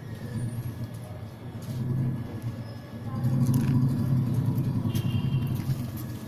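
A low motor rumble, like a vehicle engine running nearby, that swells about two seconds in and again from about three seconds.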